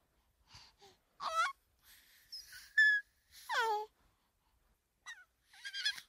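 A baby vocalizing: short high-pitched squeals and breathy gasps, separated by brief pauses, with one longer squeal that falls in pitch about halfway through.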